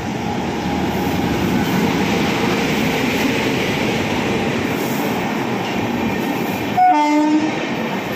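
Express train passing through at speed: a steady, loud rush of LHB coaches and their wheels going by close to the platform. About seven seconds in, a short pitched horn blast sounds over it.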